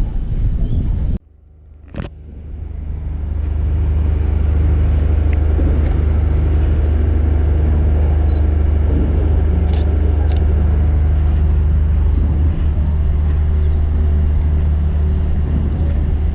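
Steady low rumble of road traffic. It drops out abruptly about a second in, a single sharp click sounds in the gap, and the rumble fades back up over the next two seconds.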